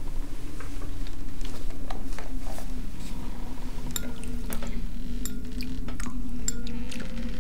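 Metal spoons clinking against ceramic soup bowls, with wet slurping of soup, over a low steady hum. The sharp clinks come in a quick scatter from about four seconds in.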